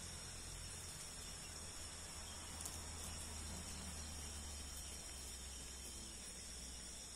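Faint, steady chirring of crickets and other night insects, with a low hum underneath and a single small click a little under three seconds in.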